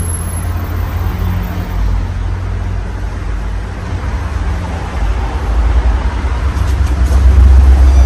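Casablanca California Zephyr 52-inch ceiling fan with four South Seas blades running: a steady rush of air over a strong low rumble that swells louder near the end.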